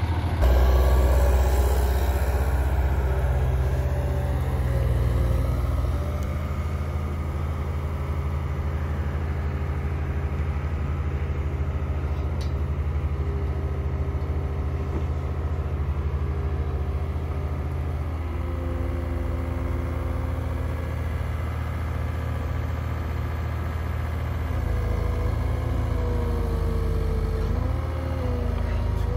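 Heavy diesel engine running steadily at idle. Its note shifts about two-thirds of the way through, then dips and rises again near the end.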